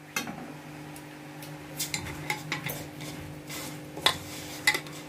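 A hand stirring and rubbing a dry mix of flour, semolina, sugar and fennel seeds in a stainless steel bowl, with scattered light clicks and scrapes against the metal.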